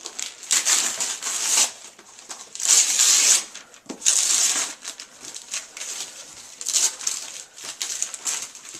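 Wrapping paper on a large present being torn open and crumpled, in several rustling rips of a second or so each, the loudest a few seconds in.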